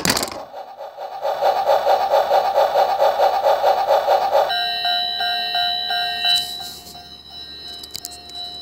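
A clattering knock at the start, then a toy train's electronic sound effect: a fast-pulsing, bell-like tone for about three seconds, changing to steadier electronic tones with a short repeated beep that fade out after a couple of seconds.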